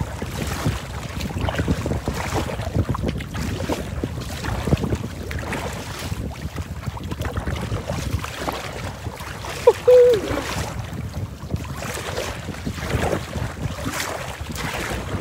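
Strong wind buffeting the microphone while choppy lake waves wash and slap against a plastic kayak's hull, the noise rising and falling with gusts. A brief pitched squeak about ten seconds in.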